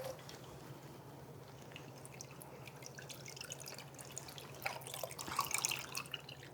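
Faint trickling and dripping of a cocktail poured from a shaker into an ice-filled glass, with light clinks that cluster about five seconds in.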